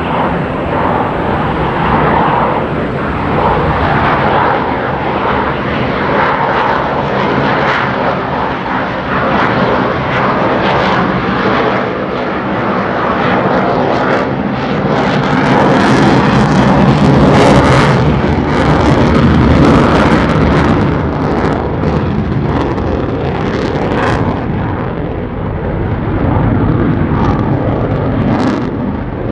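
Navy fighter jet flying a demonstration pass, its engine noise loud and continuous, swelling to its loudest about halfway through with a rapid crackle in the exhaust noise before easing off.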